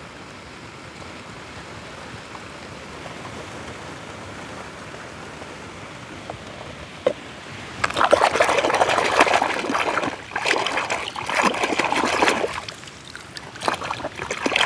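A hand splashing and sloshing through shallow muddy water in four rough bouts, starting about eight seconds in. Before that there is only a faint steady background hiss.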